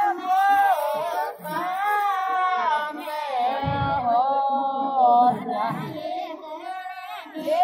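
Women singing a Shekhawati (Marwari) folk song with no instrument, in long held phrases whose pitch wavers and bends, with a brief break about five seconds in.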